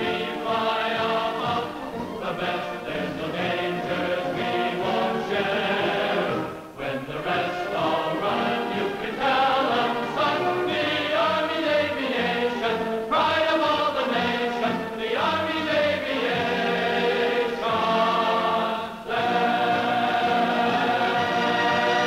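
Film score: a choir singing sustained, shifting chords over an orchestra, with brief breaks between phrases.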